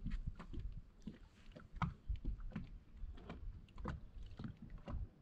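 Scattered, irregular light clicks and knocks of fishing gear being handled aboard a small boat, over a low rumble of wind on the microphone.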